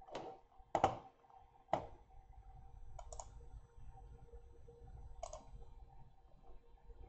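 A handful of short, sharp clicks and light taps a second or two apart, the loudest two near one and two seconds in.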